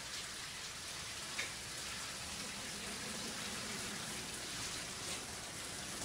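Shower running: a steady hiss of water spray falling in a shower stall.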